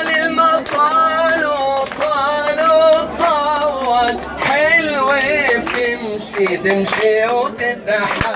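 A singer holding long, wavering Arabic melodic lines without clear words, with a crowd clapping along in time.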